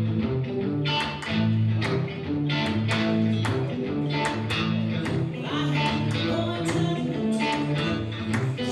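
Guitar strummed in a steady rhythm over low bass notes: the instrumental opening of a song, before any singing.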